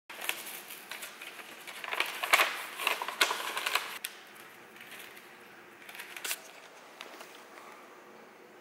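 Paper envelope being opened by hand and sleeves of film negatives pulled out: a run of crisp paper crackles and rustles, loudest about two to four seconds in, then a few soft rustles.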